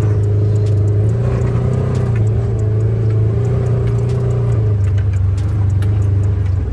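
Side-by-side UTV engine running steadily under way with a constant low drone, with light clicks and rattles from the vehicle over rough ground.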